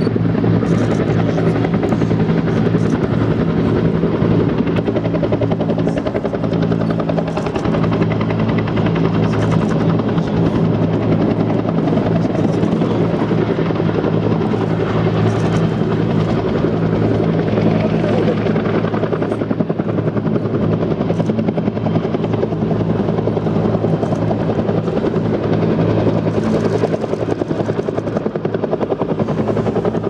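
Military helicopters, an AH-1S Cobra and a hovering UH-1, with their turbines and rotors making a loud, steady hum with a low tone and no break.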